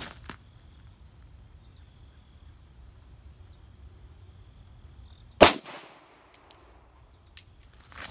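A single 9mm pistol shot from a 4-inch-barrelled Glock 19 firing a +P+ 90-grain round, one sharp crack about five and a half seconds in with a brief ringing tail. A couple of faint clicks follow.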